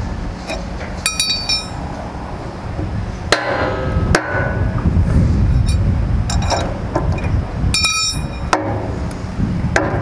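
A steel bar knocking and clinking against the metal piston and cylinder of a concrete and grout pump. There are about six short metallic hits spread through the stretch, each with a brief ring, over a steady low rumble.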